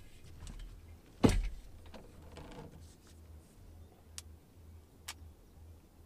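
A sharp knock on the jon boat's hull about a second in, then two light clicks, as a person gets up and moves about in the boat, over a faint low hum.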